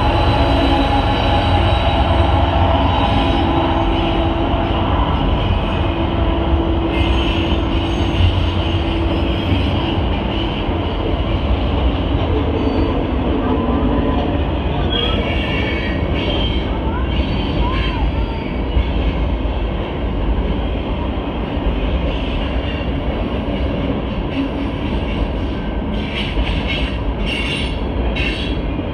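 A double-stack container freight train rolls past at close range with a steady, loud rumble of wheels on rail. Brief high squeals come from the wheels around the middle and again near the end.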